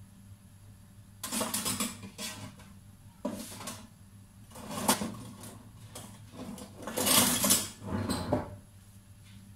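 Kitchen dishes and utensils clattering off to one side in a series of short bursts, the loudest about seven seconds in, over a low steady hum.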